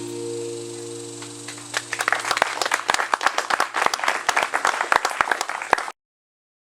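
The final acoustic guitar chord ringing out and fading, then a small audience breaking into applause about two seconds in. The recording cuts off abruptly near the end.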